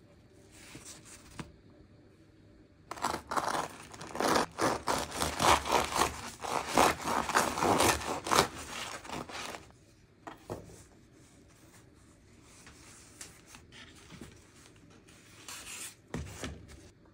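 A knife sawing through the crisp crust of a round whole-grain sourdough loaf: a rapid run of rasping, crackling strokes for about seven seconds, then a few quieter crackles near the end.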